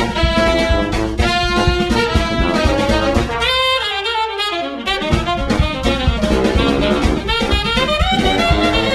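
Background music: upbeat jazz led by horns over a steady drum beat. The drums drop out for about a second and a half in the middle, while a horn line slides upward.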